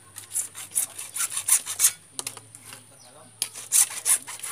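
Hacksaw cutting through blue PVC water pipe with quick back-and-forth rasping strokes; a run of strokes, a pause of about a second and a half, then a few more strokes.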